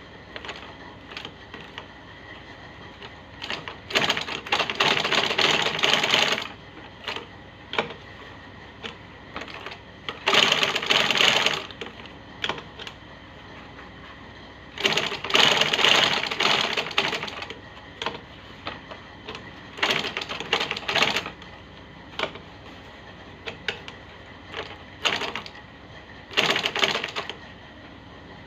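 Manual sewing machine stitching a shoe upper in short runs of rapid clicking, each lasting one to two and a half seconds, with pauses and a few single clicks between runs as the work is repositioned.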